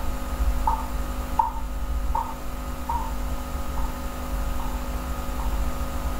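Steady low electrical hum and background noise from the recording setup, with a faint short chirp repeating about every three quarters of a second.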